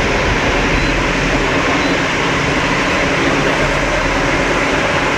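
Steady machinery noise from a belt-conveyor truck loader running, with a low rumble that eases off about a second and a half in.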